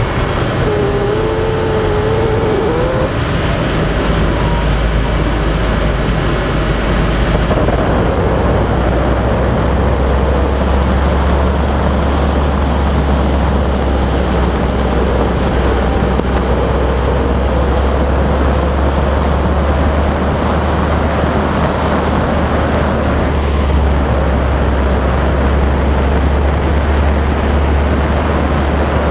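Steady wind rush and motor-and-propeller drone picked up aboard a Multiplex TwinStar, a twin-electric-motor RC plane, in flight. The sound turns deeper about eight seconds in.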